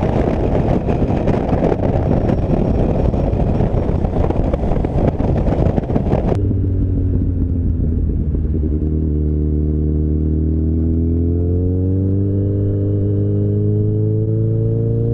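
Heavy wind and road roar on a moving motorcycle at highway speed. About six seconds in it gives way abruptly to a motorcycle engine's clear, steady note, which rises slowly in pitch as the bike speeds up in traffic.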